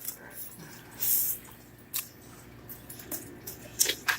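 Cardboard shipping box being opened by hand: rustling and a loud tearing or scraping burst about a second in, with a few sharp clicks and snaps later.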